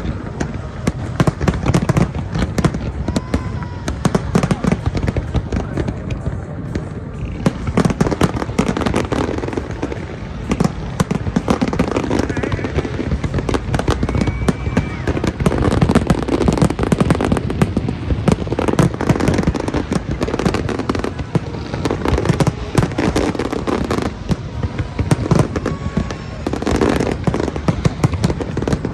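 Large aerial fireworks display: a dense, continuous barrage of shell bursts, rapid bangs and crackling with no pause.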